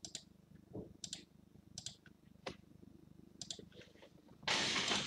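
Scattered light clicks at a computer. About four and a half seconds in, a louder rustling scrape starts.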